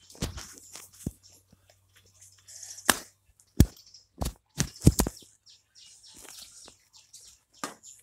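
Footsteps and handling noise from a handheld camera: a scatter of sharp knocks and thumps, bunched between about three and five seconds in, over a hissy rustle.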